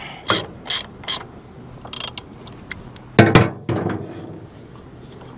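Ratchet wrench clicking in a few short strokes as it turns out the cap of a Kubota BX tractor's hydraulic pressure relief valve, with a louder metal knock a little past three seconds.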